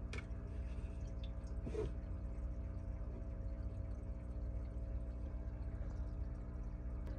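Aquarium filter running: water trickling over a steady low hum, with two light knocks, one at the start and one about two seconds in.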